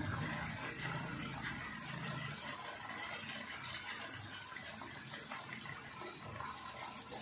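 Tamarind water poured from a small plastic bowl onto chicken pieces in a pan, a thin stream splashing and trickling onto the meat and spice paste.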